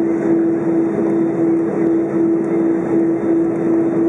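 Airbus A320 cabin noise while taxiing: a steady engine hum with a strong, even tone through it.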